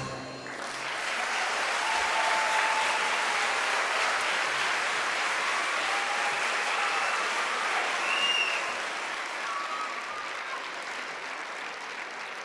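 Audience applauding at the end of an orchestra piece. The applause swells within the first second, holds steady, then slowly fades toward the end.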